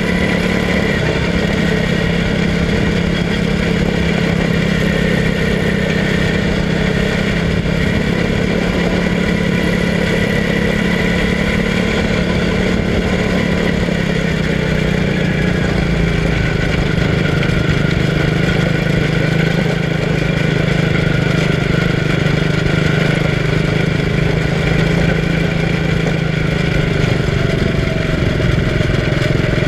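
Quarter midget race car's small single-cylinder engine running steadily while lapping, heard close up from a camera mounted on the car. Its pitch drops a little about halfway through and then holds.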